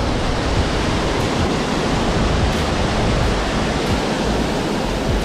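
Steady rushing of water spilling over a low-head dam, a loud even roar.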